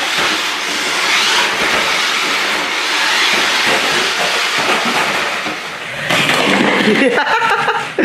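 Remote-control Jeep monster truck's electric motor and gears whirring as it drives over a hardwood floor, a steady noisy whirr that gets louder about six seconds in.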